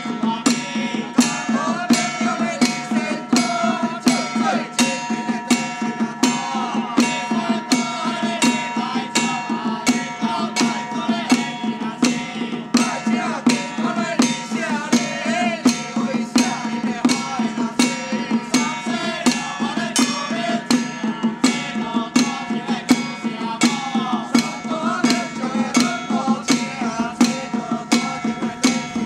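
A group of men chanting in unison while beating small hand-held drums with sticks in a steady beat, about two strokes a second.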